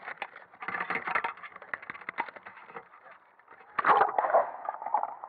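Water splashing and crackling against an action camera's waterproof housing at the surface, as a dense run of small clicks. About four seconds in there is a louder splash as the camera goes under, and after it the sound turns duller and steadier.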